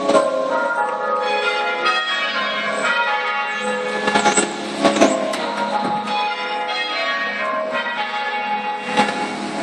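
A ring of half-muffled church bells being rung in changes, with loud open strokes alternating with dull muffled ones and the tones overlapping continuously. The muffles are fitted on the opposite side of the clappers from the usual one.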